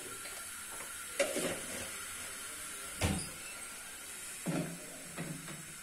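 Four separate knocks and clunks, a second or more apart, as kitchen containers are handled and taken from a wall cupboard, over a faint steady hiss.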